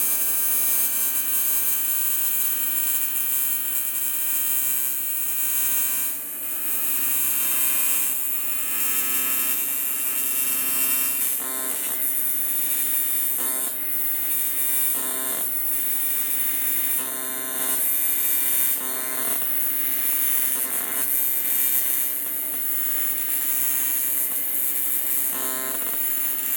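AC TIG welding arc on aluminum from an Everlast 325 EXT welder: a steady electrical buzz with a high hiss, broken by a few brief pauses.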